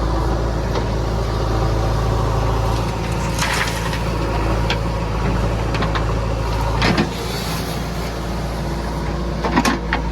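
Backhoe loader's diesel engine running steadily, with a few sharp clanks over it; the loudest come about seven and nine and a half seconds in.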